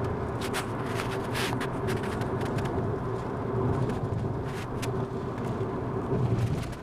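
Car being driven, its running joined by a steady droning tone and scattered sharp clicks, most in the first three seconds and a couple more past the midpoint. This is the noise the car has started making again.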